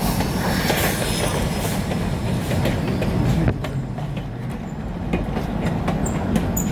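Steam train rolling past, its wheels clicking irregularly over the rail joints over a steady low rumble; the clicking is busiest at first and eases about three and a half seconds in.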